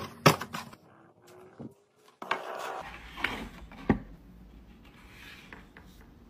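Cardboard pizza box being handled: a few sharp knocks and some rubbing and scraping of cardboard against a hard surface, the loudest knock just after the start.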